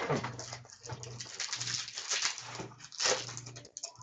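Trading-card pack wrapper being torn open and crinkled by hand: a sharp rip at the start, then dense crackling and rustling throughout, over a steady low electrical hum.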